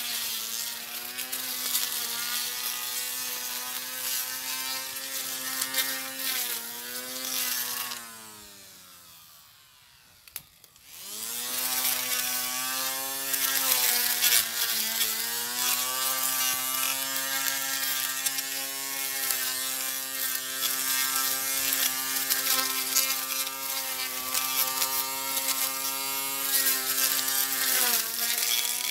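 Portable electric grass cutter's motor running with a steady whine, its pitch dipping briefly now and then. About eight seconds in it winds down and stops, then after a click it spins back up and runs on.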